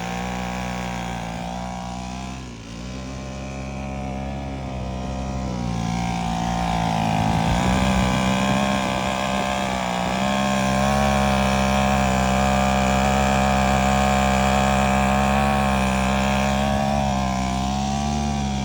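Weed eater motor rigged as a kayak outboard, running steadily under way. Its pitch wavers a little, dips briefly about two seconds in, then picks up and runs louder from about six seconds in.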